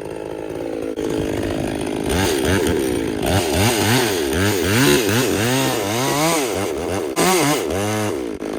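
Husqvarna 257 two-stroke chainsaw running at a steady speed. From about two seconds in, its revs rise and fall over and over, about twice a second, and they settle back to a steady speed near the end. The engine has its ignition timing advanced about 10 degrees.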